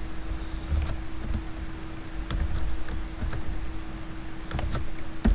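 A handful of separate keystrokes on a computer keyboard, irregularly spaced, as code is typed. A faint steady hum runs underneath.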